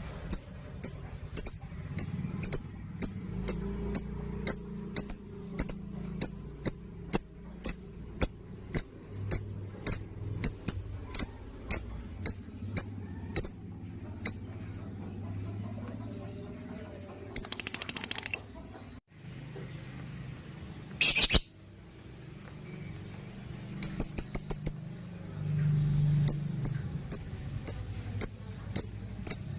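Lovebird calling: sharp high chirps repeated about twice a second, broken in the middle by a few short, rapid chattering trills.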